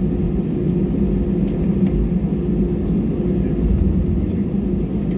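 Steady low rumble with a constant hum inside the cabin of an Airbus A320 rolling on the ground after landing.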